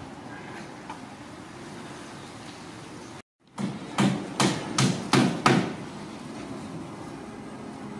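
A brief dropout in the sound, then about five sharp knocks in quick succession, roughly two to three a second, over a steady low background hum.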